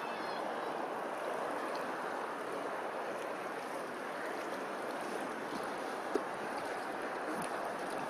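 Steady rush of running water from a stream, with a single sharp click about six seconds in.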